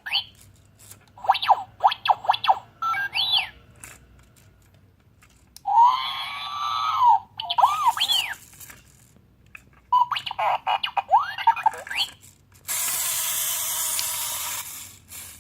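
R2-D2 toy's electronic sound effect: several groups of beeps, warbling whistles and rising and falling chirps with pauses between, then a steady hiss lasting about two seconds near the end.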